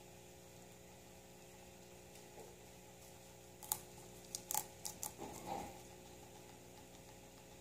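Guinea pig chewing leafy greens and celery, with a quick run of sharp crunchy clicks about halfway through over a faint steady hum.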